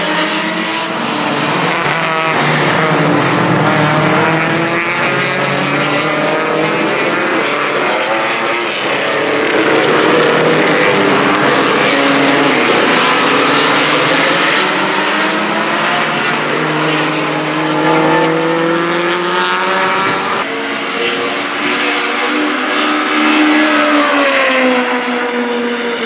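BMW 2002 racecar's naturally aspirated four-cylinder engine at hard throttle, its pitch climbing and then dropping back again and again as it revs out and changes gear, with a long falling sweep near the end.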